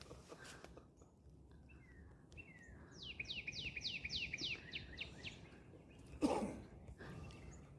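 Northern cardinal singing a fast series of about ten clear down-slurred notes, roughly four a second, lasting about two seconds. A few faint chirps come before it, and a dull thump follows about six seconds in.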